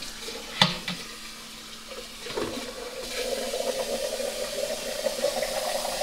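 A sharp knock just after the start, then from about two seconds in a kitchen faucet runs, pouring water into a glass jug and getting steadily louder as it fills.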